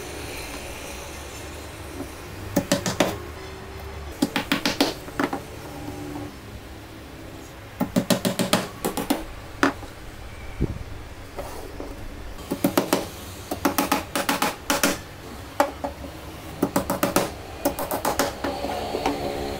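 Claw hammer driving nails into the joints of a wooden frame: about five runs of quick, sharp blows, several strikes in each.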